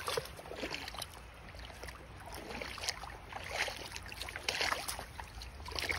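Feet wading through a shallow rocky creek, with irregular small splashes and sloshes over the steady rush of the flowing stream.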